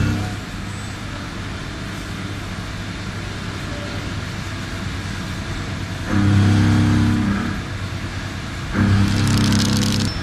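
WFL M60 MillTurn CNC machine running while machining a crankshaft: a steady machine noise, with a low hum from the drives cutting in twice, about six and nine seconds in. The second spell carries a high hiss.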